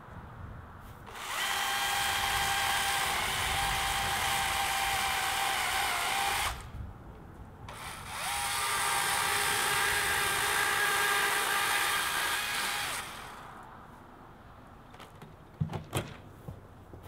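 Husqvarna T535i battery chainsaw cutting through a limb in two runs of about five seconds each, with a short pause between them. A few sharp knocks follow near the end.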